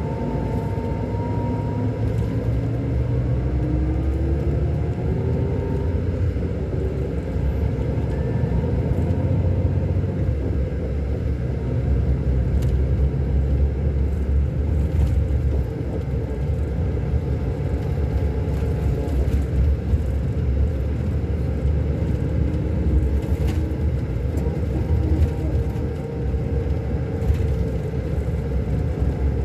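Scania K-400 bus diesel engine running under way, a steady low rumble, with a faint whine rising in pitch during the first few seconds.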